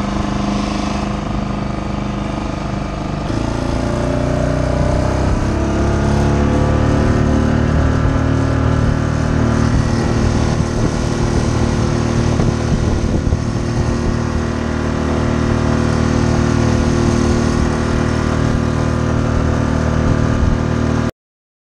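Mariner outboard motor on a small skiff running under way; about three seconds in the throttle is opened and the engine note rises, then holds steady. The sound cuts off suddenly near the end.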